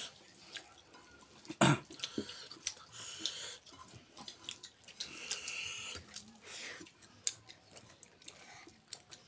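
Wet, sticky squelching of a hand mixing rice and chicken in a steel bowl, with scattered small clicks and one sharp knock about a second and a half in.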